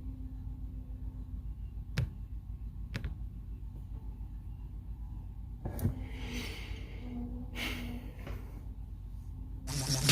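Low steady hum with a few sharp clicks and two breathy exhalations. Beatboxing starts just before the end.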